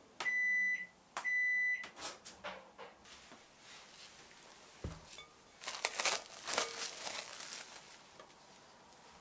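Microwave oven's end-of-cycle beeps, two long steady tones, the loudest sound here. About five seconds in comes a dull knock as a glass bowl is set down on a cork trivet, followed by cling film crinkling as it is peeled back off the bowl.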